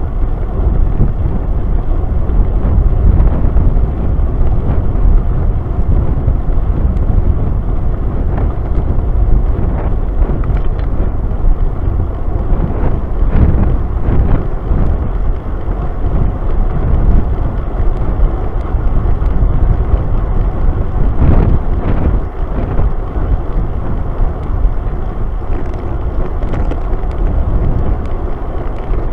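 Wind rumbling and buffeting on the microphone of a bike-mounted camera while riding at speed, a steady low noise that swells a few times.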